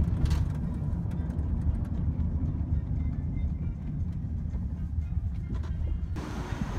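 Steady low rumble of a car's engine and road noise heard inside the cabin while driving. Near the end it cuts abruptly to an even outdoor hiss.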